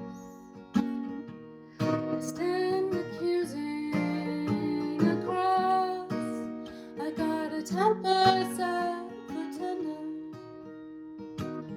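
Acoustic guitar strumming chords, with a woman's voice singing a wordless or unclear melodic line over it through the middle of the stretch.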